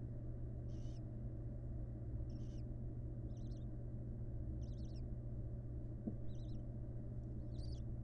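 Barn owl calls in the nest box: six short, high, wavering calls, about one every second and a half, over a steady low hum.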